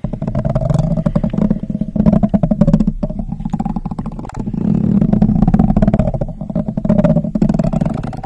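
A small handheld makeup tool brushed and scratched rapidly against a microphone grille, giving a loud, dense, fast scratching with a buzzing low rumble. It eases off briefly about three and a half seconds in, then picks up again.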